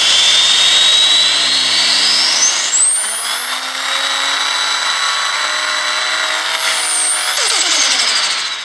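Engine revving up with a high whine that rises steeply over the first few seconds, holds, then falls away near the end as the revs drop.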